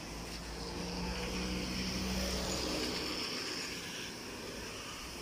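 Car going by on a wet street: a low engine hum that swells about two seconds in and fades after three seconds, over steady tyre hiss from the wet road.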